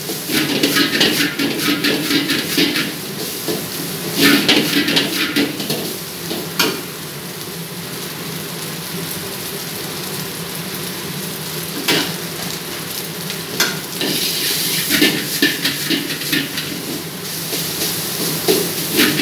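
Metal ladle scraping and clinking against a carbon-steel wok as fried rice is stir-fried and sizzles, over a steady rushing background. The ladle strokes come in quick bouts, with a quieter stretch in the middle where mostly the steady rush is heard.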